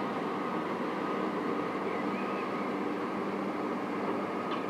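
Steady mechanical drone of a passing general cargo ship's engines and machinery, over an even hiss. A few short, sharp clicks begin near the end.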